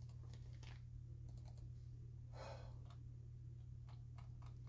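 Faint clicking of a computer keyboard, a few scattered clicks, over a steady low hum, with one breath about two and a half seconds in.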